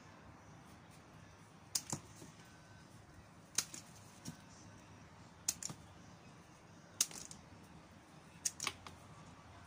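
Hand pruning shears snipping through rose stems to make cuttings: about six sharp snips, some in quick pairs about a fifth of a second apart.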